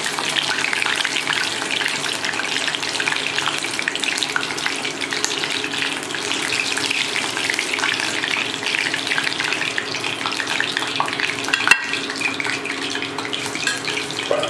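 Battered chicken lollipops deep-frying in hot oil in an iron kadai: a steady, dense crackling sizzle over a low steady hum. There is a single sharp knock near the end.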